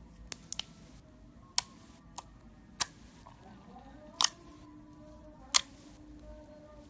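Slime being squeezed and pressed, giving sharp popping clicks as trapped air bursts: about eight irregular pops, some in quick pairs, the loudest about one and a half and five and a half seconds in.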